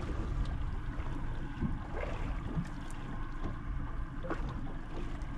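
Boat motor running steadily at trolling speed, with wind on the microphone.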